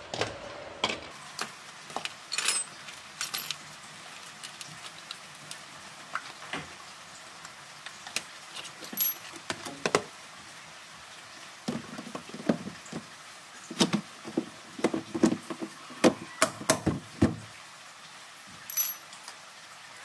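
Irregular clinks of metal tools and knocks of hard plastic as a washing machine's base panel and parts are handled and refitted, with a denser run of louder knocks past the middle. The machine itself is switched off.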